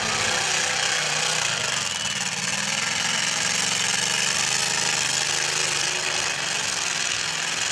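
Demolition derby car's engine running steadily over a constant rushing noise.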